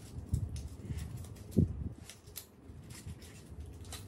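Toy poodle rooting through crumpled A4 paper balls with its nose, searching for hidden treats: scattered paper crinkles and light clicks, with a few dull low thumps, the loudest about a second and a half in.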